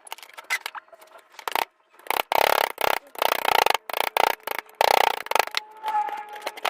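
A hand tool scraping on metal in a run of irregular strokes, each under half a second. A tune comes in near the end.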